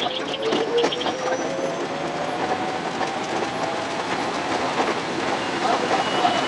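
521-series electric train running, its motor whine slowly rising in pitch as it gathers speed out of the station, with the wheels clicking over rail joints.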